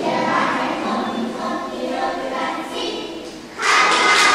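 Group of young children singing together as a small choir, the song trailing off about three and a half seconds in. It is followed by a sudden louder burst of noise near the end.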